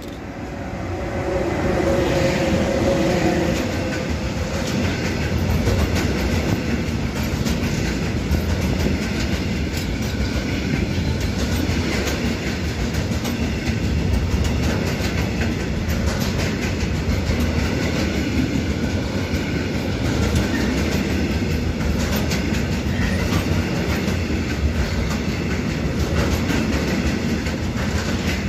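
A class 186 electric locomotive passes close by, its whine falling slightly in pitch during the first few seconds. Then a long intermodal container freight train rolls past, with a steady rumble and the clickety-clack of its wheels over the rail joints.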